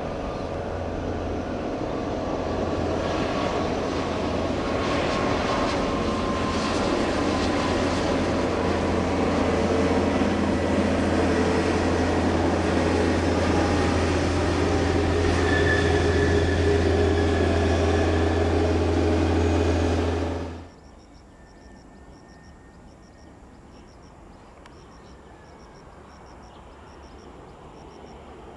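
Turbofan engines of an Airbus A320neo taxiing past: a steady jet whine with several held tones over a low rumble, growing louder for about twenty seconds, then cut off abruptly. After that comes fainter jet noise from a second airliner on the runway, slowly rising, with faint regular chirping.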